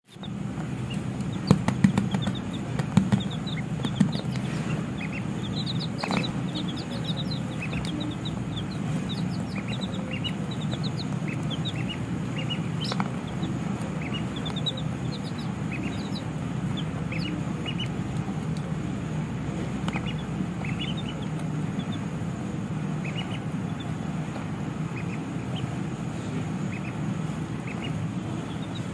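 Baby chicks peeping: many short, high cheeps scattered throughout, over a steady low hum. A few sharp knocks stand out in the first few seconds.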